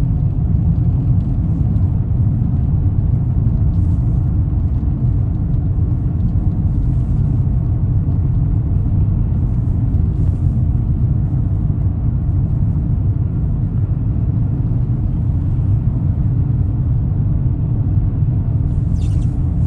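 Car driving along, a steady low rumble of road and engine noise with no change in pace.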